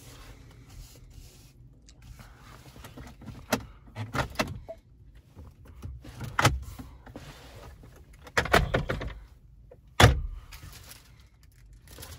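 Irregular clicks, knocks and thunks from handling a pickup's doors and fittings. The loudest is a sharp thunk about ten seconds in.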